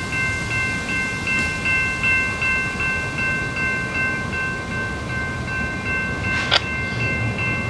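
Railroad crossing warning bell ringing continuously at about three strokes a second, over a low rumble, with one sharp click near the end.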